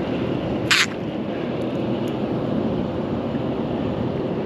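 Steady rushing of wind on the microphone and water around a small boat, with one short sharp hiss a little under a second in.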